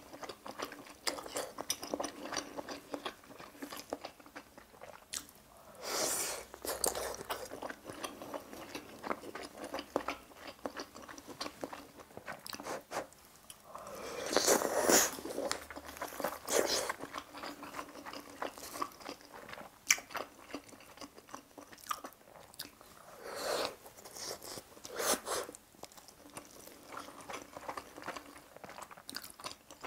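Close-miked eating of budae-jjigae with ramen noodles: continual chewing and wet mouth sounds, broken by a few longer slurps of noodles, the loudest about halfway through.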